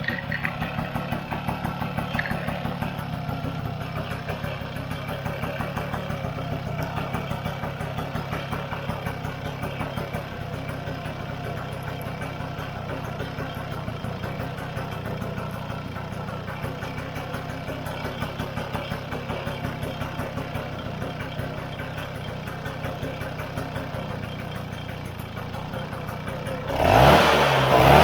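Vespa PX two-stroke single-cylinder scooter engine running on its first start after a rebuild, idling with a steady fast pulse, then revved up loudly near the end.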